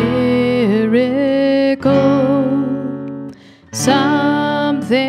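A woman singing to her own strummed acoustic guitar: she holds one long sung note with a slight vibrato over ringing chords, the sound dips briefly about three and a half seconds in, then a fresh strum comes in under the sung word "miracle".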